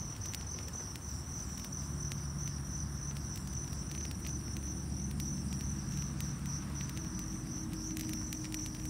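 Insects trilling steadily in one high, continuous tone, with scattered light crackles and rustles of dry grass and twigs being laid on a smouldering campfire.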